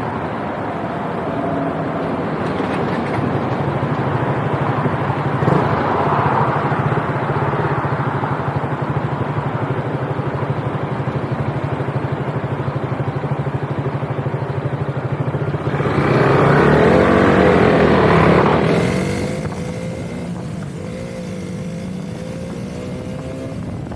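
Motorcycle engine running steadily under way, with wind noise. About sixteen seconds in, a louder rush of noise lasts a couple of seconds; then the engine note drops and the sound quietens.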